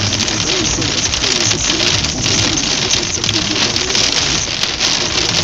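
Heavy rain pelting a car's roof and windshield in a thunderstorm, heard from inside the car: a loud, steady, dense hiss.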